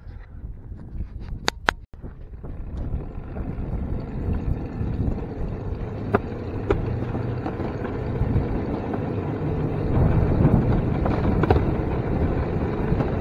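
DIY electric railcart rolling along old rusty track: a steady rumble of the wheels on the rails that grows louder as it picks up speed, with a few sharp clicks and knocks along the way.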